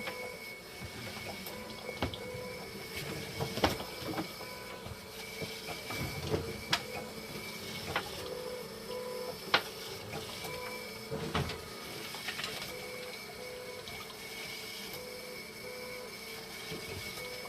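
Hemodialysis machine running: a steady mechanical hum with water moving through it, a low tone pulsing on and off, and a few sharp clicks and knocks from handling scattered through.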